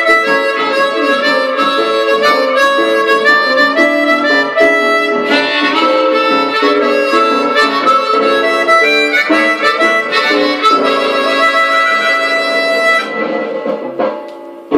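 Blues harmonica playing, several notes sounding together in held and shifting chords, played close into a microphone. The playing thins out and fades away about a second before the end.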